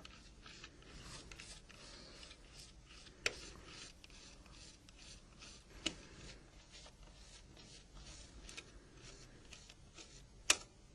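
Small Torx Plus screwdriver backing out tiny screws from a Nokia 1100 mobile phone's frame: faint, repeated scratching and rubbing of the driver bit, with three sharp clicks, about a third of the way in, about halfway, and near the end.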